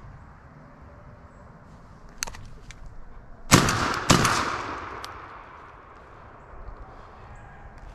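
Shotgun fired at a deer: two loud blasts about half a second apart, the second trailing off in a long echo through the woods.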